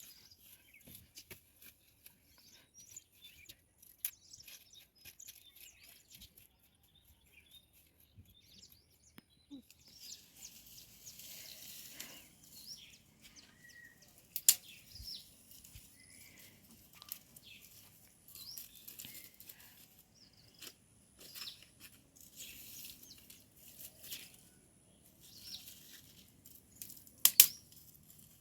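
Short bursts of rustling and crackling from leaves and stems being handled, with scattered small clicks and two sharper, louder snaps, one about halfway through and one near the end.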